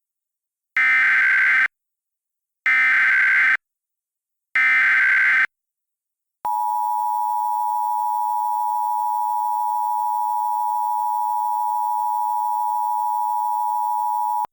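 Emergency Alert System tones: three short, buzzy SAME header data bursts about two seconds apart, then the steady two-tone EAS attention signal starting about six seconds in and holding for about eight seconds. This is the standard sequence that opens an emergency alert broadcast.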